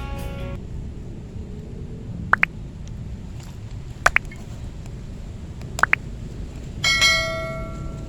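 Steady outdoor background noise with three short two-note rising whistles, about two seconds apart, then one ringing bell-like ding near the end that dies away over about a second.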